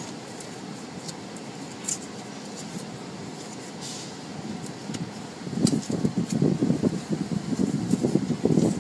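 Automatic car wash heard from inside the car's cabin: a steady hiss of wash water over the car, then from about five and a half seconds in a louder, irregular rumbling as the spinning wash brushes scrub across the body and windshield.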